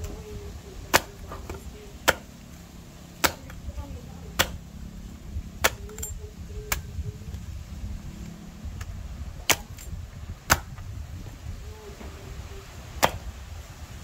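Machete blade chopping into a young green coconut: sharp single strikes, about one a second, nine in all, with longer pauses after the sixth and eighth blows.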